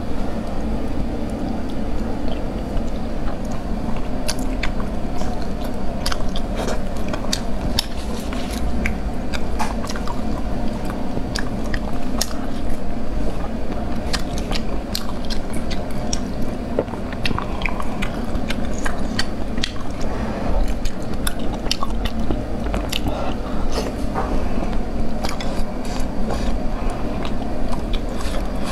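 Close-miked eating sounds: biting and chewing soft, saucy food by hand, with many small wet clicks, over a steady low hum.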